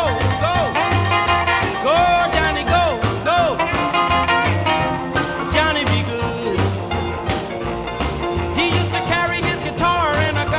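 A recorded song with a steady bass beat and a sliding melody, played back from cassette on a Technics RS-M205 deck and taken straight from its line output.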